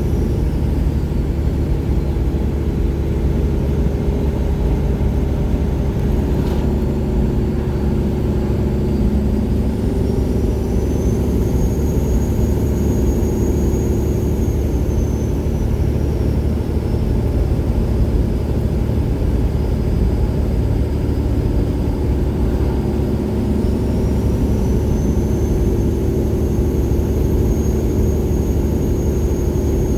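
Detroit Diesel Series 60 engine of a 1999 Peterbilt 379 pulling through 7-inch straight pipes: a steady deep diesel drone with a high turbo whistle over it. The whistle falls in pitch at the start, rises about ten seconds in, sinks again around sixteen seconds, and climbs again near twenty-four seconds.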